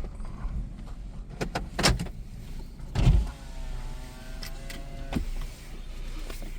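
A car's electric window motor whines steadily for about two seconds and stops with a clunk. A few knocks and bumps come before it.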